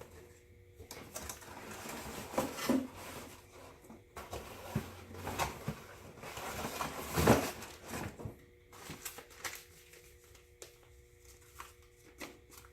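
Paper rustling as an instruction booklet is unfolded and its pages leafed through, in irregular swells, followed by a few light clicks of handling.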